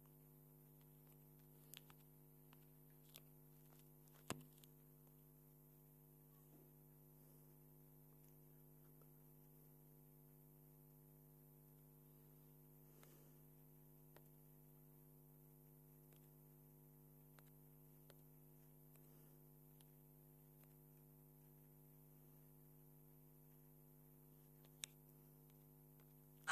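Near silence: a faint, steady electrical hum with a few brief, faint clicks, the sharpest about four seconds in.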